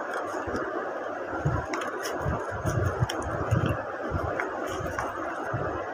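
A homemade paper blind bag being cut and handled: paper rustling with dull handling bumps and a few faint clicks, over a steady background hiss.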